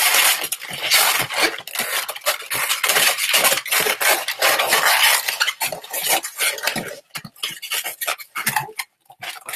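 Latex 260 modelling balloons rubbing against each other and against hands as a bubble is twisted and locked in place, in a dense run of quick rubbing and creaking strokes that thins to a few scattered rubs about seven seconds in.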